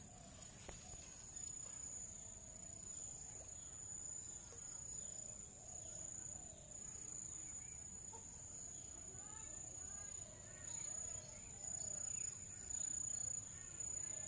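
A steady high-pitched insect drone, with faint bird calls that come thicker in the last few seconds.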